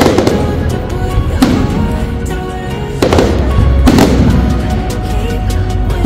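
Aerial firework shells bursting: several bangs a second or two apart, over music playing throughout.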